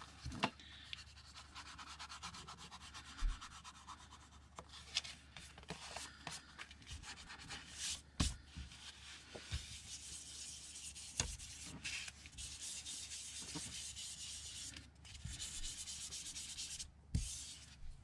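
Foam ink blending tool rubbed and dabbed over the edges of paper, a soft, continuous scratchy rubbing, as the paper's edges are being inked. Several sharp light knocks come through it at irregular moments.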